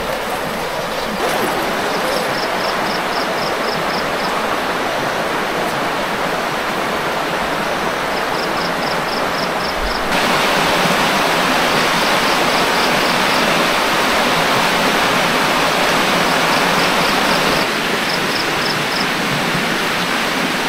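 Rushing river water, a steady full-range rush that steps louder about ten seconds in and softer again near the end. Over it, short runs of high, evenly spaced chirps repeat several times.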